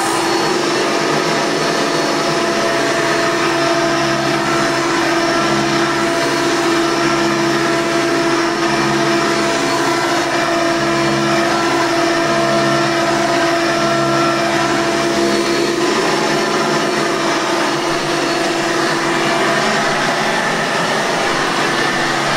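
Vintage Hoover Elite soft-bag upright vacuum cleaner running steadily at full speed, just after being switched on: a loud, even motor whine with a constant pitch.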